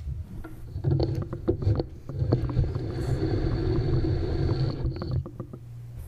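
A podium being moved across the floor: a low rumble with repeated knocks and bumps for about four seconds, with a thin high squeal over the middle of it.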